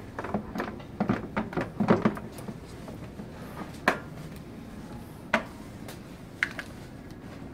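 Mannequin torso being fitted onto its hip section, the hard shell parts knocking and clicking together: a quick run of knocks in the first two seconds, then three single sharp clicks.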